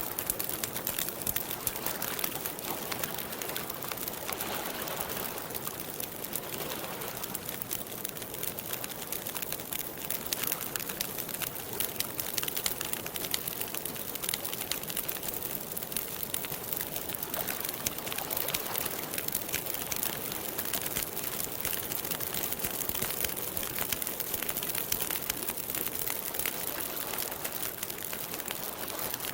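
Wood fire crackling steadily: dense, irregular pops and snaps over a soft hiss.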